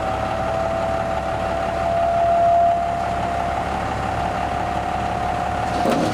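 Dump truck engine running with a steady high whine from its hydraulic hoist as the bed is raised to tip out a load of scrap machinery; the whine stops just before the end.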